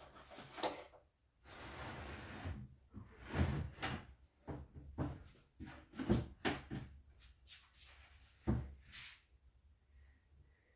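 Irregular wooden knocks and thumps with a short scraping slide, as of boards and cabinet parts being handled and set against each other during workbench carpentry.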